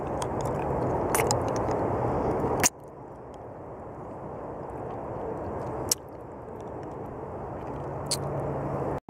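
Close-up mouth sounds of a hard-candy lollipop being licked and sucked, with a few sharp wet smacks, over a steady low rumbling background noise. The background drops suddenly about three seconds in and again about six seconds in.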